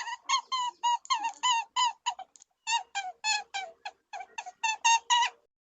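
Rabbit squeaking: a rapid run of short, high squeaks, about four or five a second, with a brief break about two and a half seconds in.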